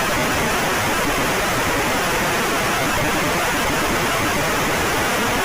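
Loud, steady static: an even hiss of white noise with no tone or rhythm in it.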